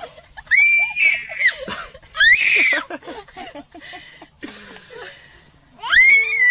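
A baby squealing with excitement: three long, high-pitched shrieks that rise and fall in pitch, about half a second in, about two seconds in, and near the end.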